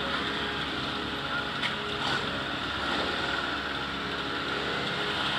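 Motorcycle engines idling and running slowly in a group, a trike's engine among them close by, making a steady engine drone.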